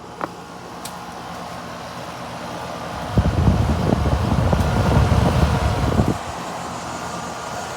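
Rheem outdoor air-conditioner condensing unit running, its fan and compressor giving a steady hum. About three seconds in, a heavy low rumble of air buffeting the microphone rises for some three seconds, then drops back. The fan runs without its earlier "helicopter" noise, which the owner credits to a replaced capacitor and a cleaning.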